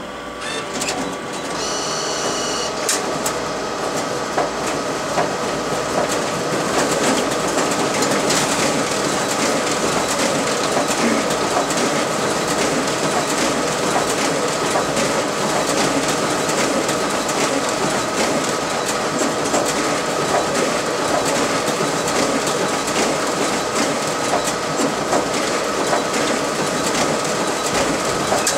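RISO ComColor 9050 high-speed inkjet printer with high capacity feeder and finisher starting up and running a 500-sheet duplex job: a steady mechanical whir with two constant hum tones and a rapid, continuous clatter of sheets feeding through. It builds up over the first two seconds, with a short beep about two seconds in.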